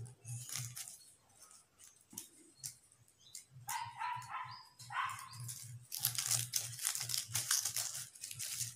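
Folded, cut craft paper rustling and crinkling as it is opened out, densest in the last few seconds. A few short high calls come in the middle.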